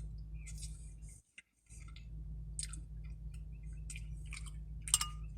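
A person chewing and slurping spaghetti close to the microphone: scattered wet mouth clicks and smacks, the strongest near the end, over a steady low hum.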